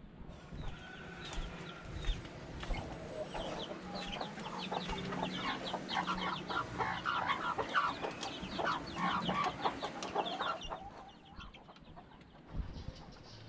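Native chickens clucking and calling, many short calls overlapping, busiest through the middle and thinning out near the end.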